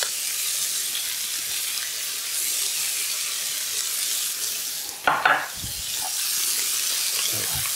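Lamb fillets searing in hot olive oil and freshly added butter in a stainless-steel frying pan: a steady hissing sizzle, with one short louder sound about five seconds in.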